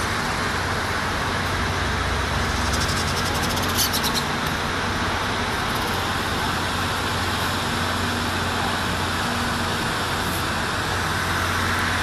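Steady outdoor background noise like distant road traffic, with a constant low hum. About three seconds in there is a brief rapid run of sharp clicks.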